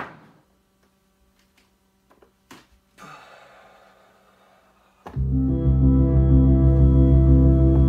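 Synthesizer played from a keyboard. A few quiet seconds with a couple of faint clicks and a soft note, then about five seconds in a loud sustained chord with deep bass comes in, with a short note pulsing above it.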